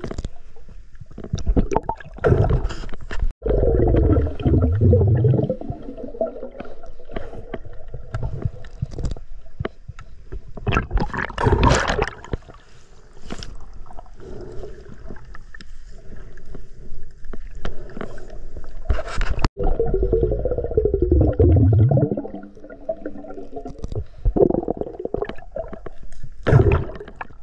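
Underwater gurgling and bubbling from water moving around a snorkeler's submerged camera, coming in surges every several seconds.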